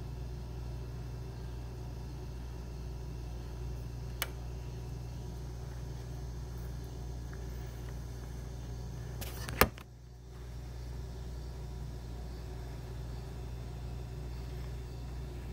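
Steady low hum of room background with no speech, a faint click about four seconds in, and one sharp click about ten seconds in, after which the hum briefly drops away.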